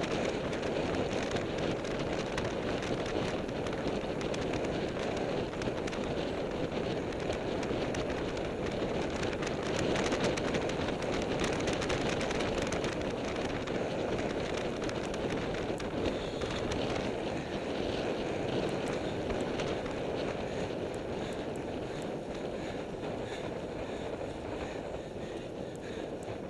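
Steady rush of wind on the microphone of a camera on a road bike riding at speed, with road noise from the tyres and fine rattling ticks throughout.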